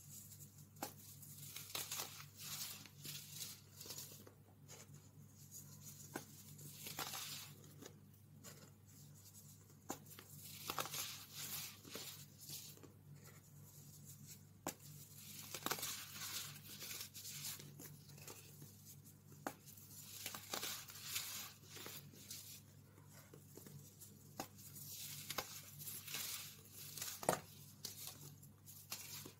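A glitter-topped baking soda block squeezed and crushed between the fingers, crumbling into powder in irregular bursts of dry crunching with many sharp little snaps.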